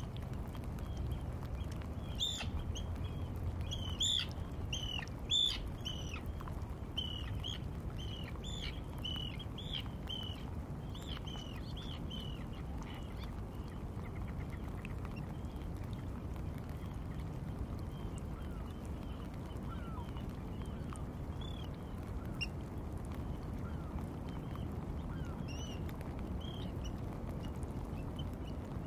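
Wadden Sea shore ambience: birds giving a quick series of short, high calls that thin out to scattered calls after about twelve seconds, over a steady low rumble.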